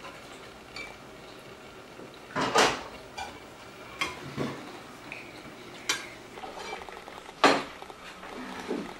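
Spoons and forks clinking and scraping against plates and soup bowls during a meal: a handful of separate clinks, two of them much louder than the rest, about two and a half seconds in and again about five seconds later.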